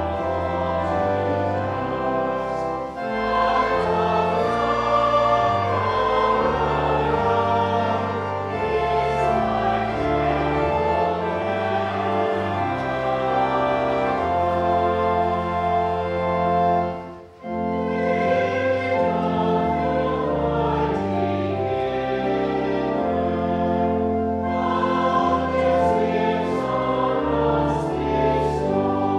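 A choir singing slow, sustained chords over instrumental accompaniment, with a moving bass line; sacred choral music. The music breaks off briefly about 17 seconds in, then resumes.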